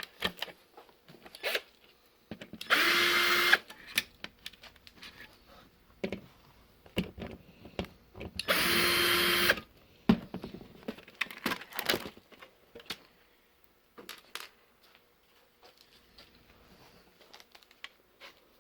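Small electric screwdriver motor running in two short bursts of about a second each, with small clicks and rattles of parts being handled in between.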